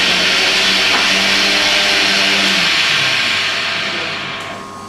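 A loud, steady hissing noise, with faint voices beneath it, fading away over the last second or so.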